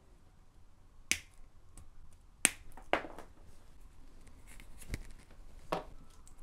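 Hand wire cutters and strippers snipping and stripping the wires of a mains cable: four sharp snips at uneven intervals, with fainter ticks and handling between.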